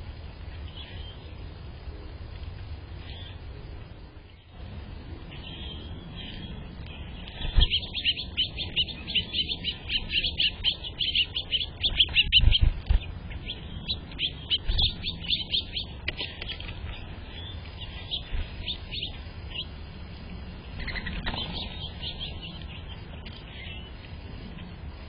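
Small birds chirping, with a dense run of rapid, high chirps through the middle and scattered chirps before and after. A few low thumps come in among the chirps.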